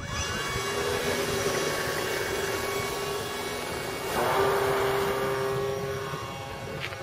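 Radio-controlled model plane's motor droning in flight with a steady pitched tone. It swells louder about four seconds in, then fades toward the end.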